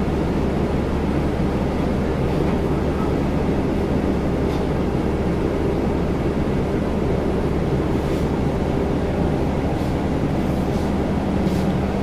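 Steady machinery drone with a constant low hum, and a few faint clicks near the end.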